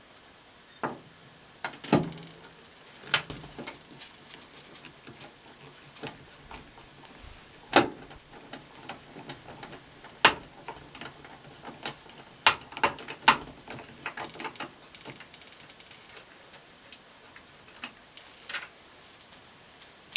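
Irregular clicks, taps and clinks of a screwdriver and loose screws against the metal cabinet of a front-load washing machine as its panel screws are taken out. A few sharper knocks stand out, around two, eight and ten seconds in.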